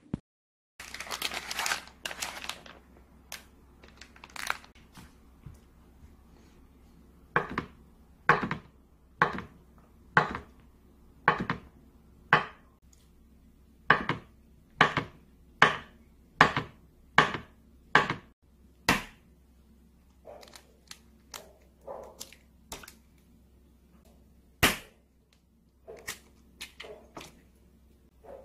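A kitchen knife chopping through pink sausage onto a wooden cutting board, about a dozen sharp cuts at roughly one a second. Before them comes a short rustle about a second in; after them come lighter taps and one sharp knock near the end.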